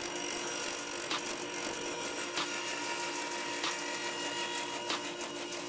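Table saw running with a steady hum, and a light click repeating about every second and a quarter.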